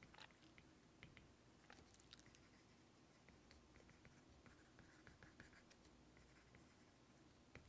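Faint taps and light scratches of a stylus writing on a tablet screen, scattered irregularly over near silence.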